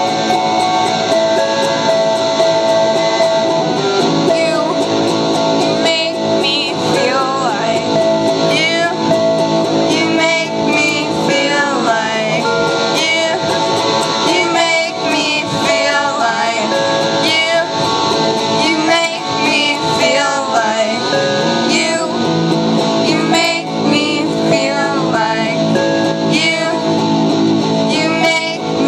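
Live indie band playing a song on electric guitar and a small keyboard, with sustained keyboard notes under strummed guitar. Singing joins about six seconds in.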